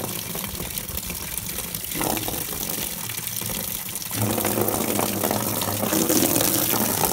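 A thin stream of water pouring off a roof gutter and splashing into a 55-gallon plastic tub, a steady running-water sound that grows louder about four seconds in.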